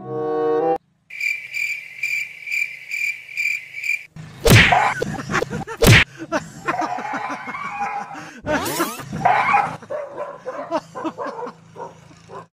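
A cricket-like high chirp pulses about four times a second for roughly three seconds. Then come two sharp knocks about a second and a half apart, the second as a cardboard box comes down over a sleeping dog. A jumble of high, wavering cries and small knocks follows.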